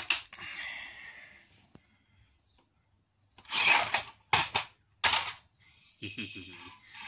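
A metal combat-robot chassis being handled and tipped over on concrete. A sharp click and a scrape come first, then a few scraping rattles and knocks about halfway through.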